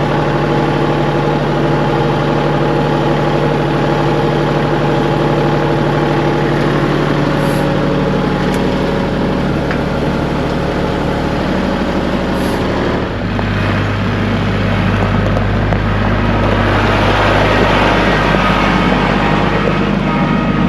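An engine running steadily; about thirteen seconds in its note drops lower and grows rougher.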